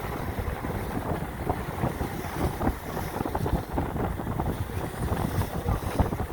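Wind buffeting the microphone over the steady rush of a boat under way at sea.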